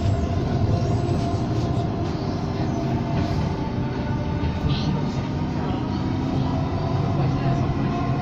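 Siemens-Duewag U2 light-rail car running along the track, heard from inside the passenger cabin: a steady rumble with a held, even hum above it.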